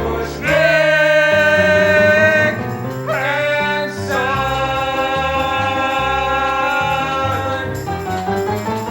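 Musical-theatre song ending: a singer holds two long final notes over instrumental accompaniment, the second one held for about four seconds.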